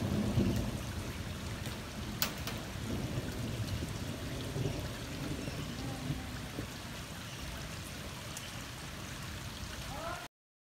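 Rainwater running down a flooded street, a steady rushing trickle, with a sharp click about two seconds in; it cuts off abruptly near the end.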